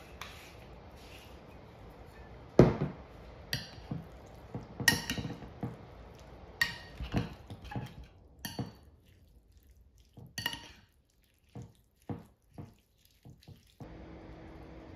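Metal utensils clinking and knocking against dishes in a string of separate taps, some with a short ring; the loudest knock comes about two and a half seconds in, and the taps grow sparser in the second half.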